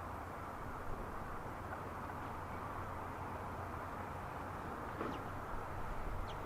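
Steady outdoor harbour ambience: a constant low rumble and wash of noise, with two faint short chirps near the end.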